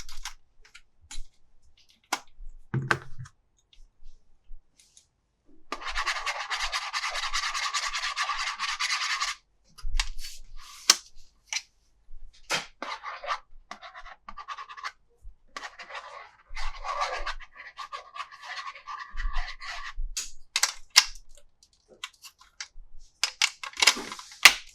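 Toy packaging and plastic toy parts being handled: scattered sharp clicks and rustles, with a steady scraping sound about six seconds in lasting some three and a half seconds, and shorter scraping stretches later.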